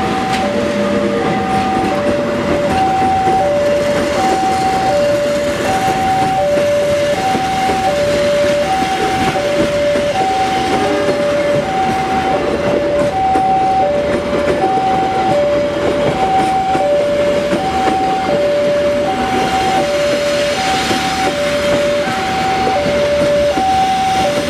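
Passenger train rolling slowly in behind a GE CC 203 diesel-electric locomotive: a steady rumble of engine and cars. Over it, a two-tone electronic warning alarm alternates high and low beeps, about two beeps a second.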